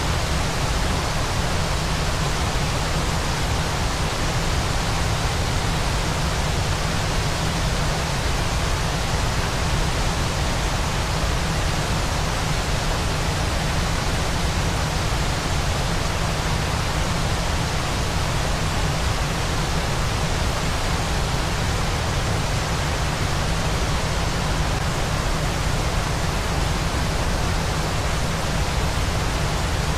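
Steady, unbroken rushing of a waterfall, an even hiss spread over all pitches with a heavier low rumble, unchanging throughout.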